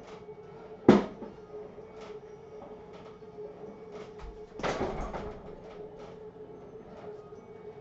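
A hanging teardrop punching bag struck once about halfway through, a dull hit that sets the bag swinging. A sharp, louder knock comes about a second in, over a steady hum.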